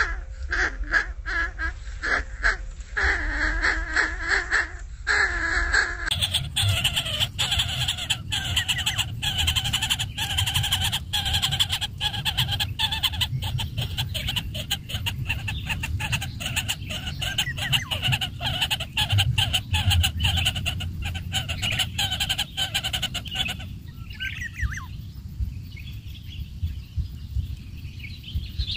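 Greater coucal nestlings giving fast, rasping begging calls, a rapid train of pulses. The calls change in pitch about six seconds in and drop away near the end, leaving a few faint downward-sliding calls, with a low rumble underneath.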